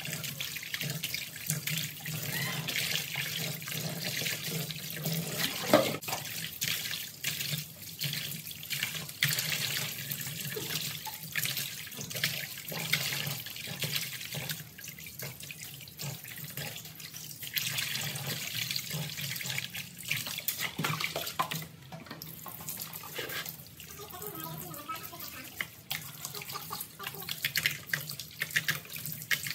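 Kitchen tap running into a plastic basin of water while hands scrub and rinse raw pork, with irregular splashing and one sharp knock about six seconds in.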